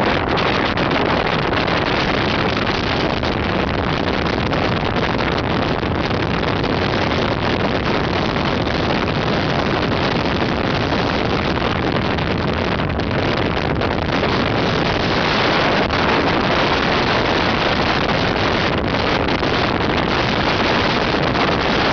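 Steady wind noise on the microphone of a Yamaha motorcycle at highway speed, with the bike's engine and road noise underneath.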